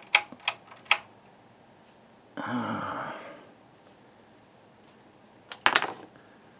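Sharp clicks from the Tektronix 485 oscilloscope's front-panel rotary switches being turned, four in quick succession in the first second and a couple more near the end. A brief breathy sigh comes around the middle.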